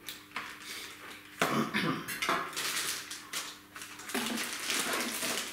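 Plastic packaging crinkling and small metal air-tool parts clinking and knocking as they are handled and unpacked from a cardboard box, in irregular bursts with a few louder knocks.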